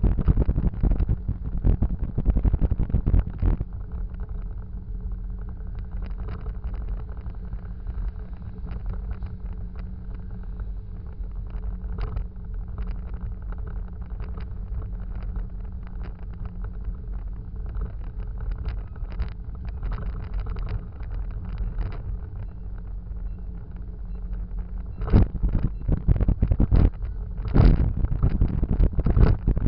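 Motorcycle heard from a rear-mounted camera. Wind buffets the microphone loudly for the first few seconds, then the engine idles steadily for about twenty seconds, and near the end loud wind noise comes back as the bike gets under way.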